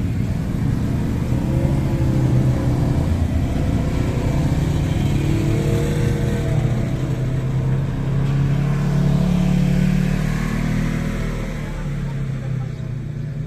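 Quad bike and side-by-side buggy engines running and revving as they pull away, the engine note rising and falling. The sound fades near the end.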